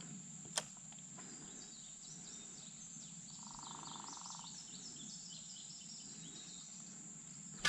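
Faint creekside ambience: birds chirping over a steady, high-pitched insect drone, with a short buzzing trill about halfway and a sharp click under a second in.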